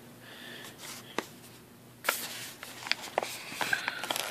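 A plastic Ricola cough drop bag crinkling and crackling as it is handled. A sharp click comes about a second in, and a busy run of crinkles and clicks starts about two seconds in.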